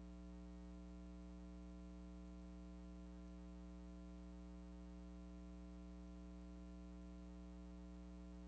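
Near silence apart from a steady electrical mains hum, a constant low drone with a buzzy ladder of overtones.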